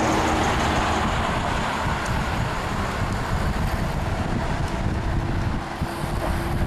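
Wind buffeting the microphone of a camera carried on a moving bicycle: a steady, loud rumbling rush.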